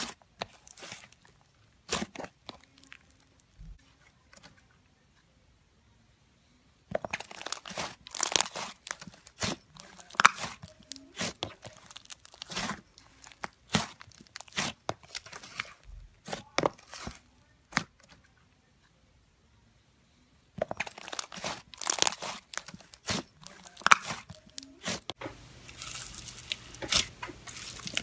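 Hands squeezing, pressing and stretching thick slime, making dense runs of crackling and popping clicks, with two short pauses between clips. Near the end, hands pressing into floam packed with foam beads.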